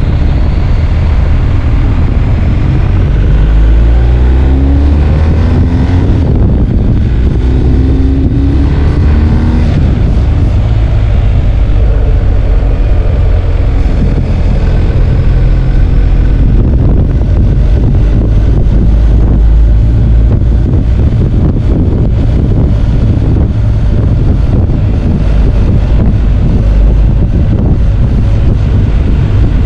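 BMW R1250 GS's 1254 cc boxer twin engine running under way, its pitch sweeping up twice in the first ten seconds as the bike accelerates, then pulling more evenly.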